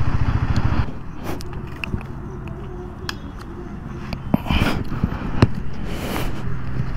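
Motorcycle engine running at low revs, a dense even pulsing for about the first second, then settling into a softer steady low rumble. Scattered sharp clicks and a few scrapes sound over it.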